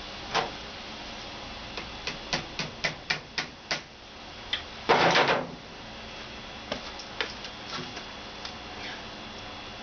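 Workshop tool noises on metal: a quick run of sharp taps and clicks, about three a second, then a brief loud hissing burst about five seconds in, followed by a few scattered clicks.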